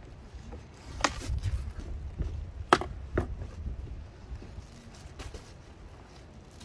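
A cardboard box being opened and its contents handled: three sharp knocks and scrapes from the flaps and packaging, over a low steady rumble.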